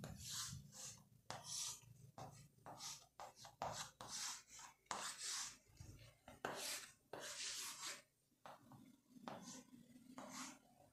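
Chalk scraping on a chalkboard as lines are drawn: a faint series of short strokes, some longer than others, with brief gaps between.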